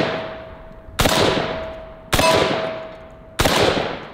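Rock Island Armory VR60 semi-automatic 12-gauge shotgun firing light number 8 birdshot target loads: three shots about a second apart, each cycling the action, each followed by a long fading echo. A thin steady ringing tone hangs between the first shots.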